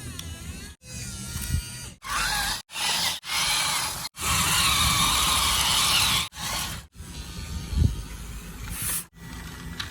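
Small electric motors of plastic toy RC construction vehicles whirring, with scraping, in short segments that cut off abruptly many times.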